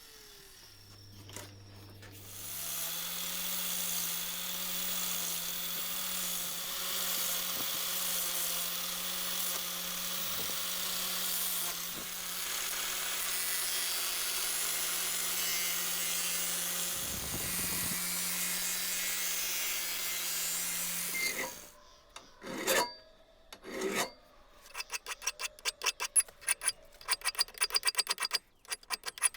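A small motorised tool runs steadily with a low hum for about twenty seconds, then cuts off. After a couple of separate strokes, a rasp or file works wood by hand in quick, regular strokes, several a second.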